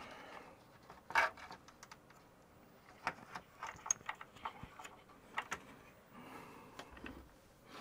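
Faint scattered clicks and light knocks from an opened hard drive being handled and set in place in a metal computer chassis.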